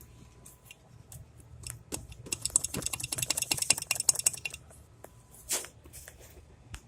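Ratchet wrench clicking rapidly for about two seconds, starting about two seconds in, as bolts are turned loose on a snowmobile engine's front cylinder; a short rasp follows.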